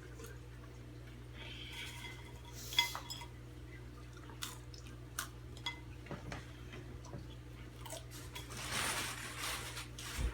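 Light clicks and clinks of dishware, with one sharp, ringing clink about three seconds in, over a steady low hum. A short rustling noise comes near the end.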